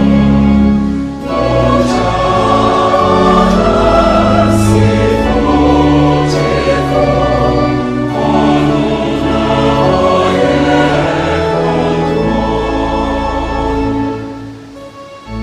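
Choir singing gospel music with instrumental accompaniment, the sound dropping away about fourteen seconds in.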